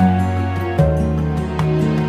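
Soft instrumental background music with sustained notes, changing chord a little under a second in.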